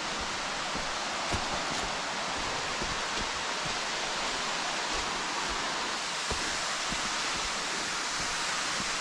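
Waterfall rushing: a steady, even hiss of falling water.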